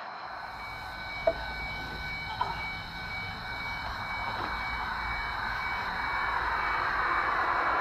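A steady low rumble under a hiss, with a few faint held tones above it, slowly growing louder; two short clicks come about a second and a half in and again a second later.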